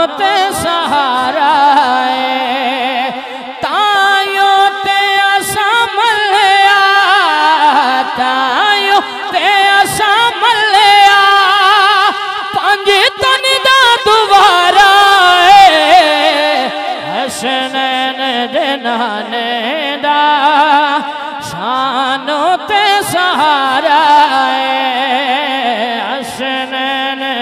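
A man sings a Punjabi naat solo into a microphone, in long, ornamented, sustained melodic lines with no break.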